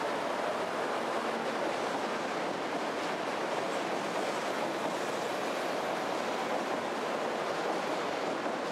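Osaka Midosuji Line subway train rolling along the station platform, its wheels and running gear making a steady, even noise.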